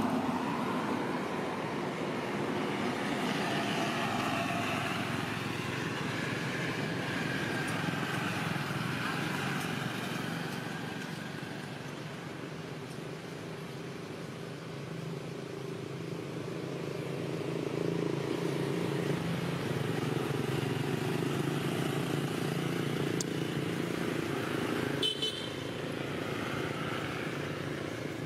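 Passing motor traffic: vehicle engines running, their pitch slowly rising and falling as they come and go, with a sharp click about 25 seconds in.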